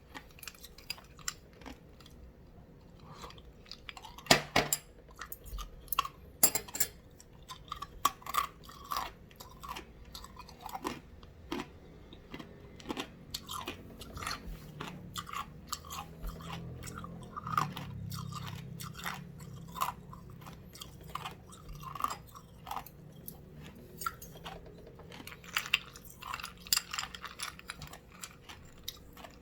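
Ice being bitten and crunched between the teeth close to the microphone: a dense, irregular run of sharp cracks and crunches.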